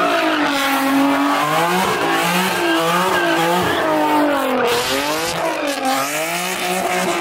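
Infiniti G-series sedan's V6 revving up and down over and over, about once a second, as it spins donuts with its rear tires squealing and smoking.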